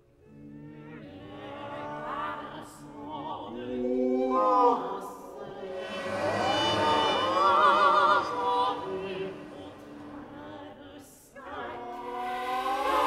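Countertenor singing in French in a contemporary opera, with wide vibrato and gliding pitches. The voice enters from near silence just after the start, dips briefly near the end, then swells louder.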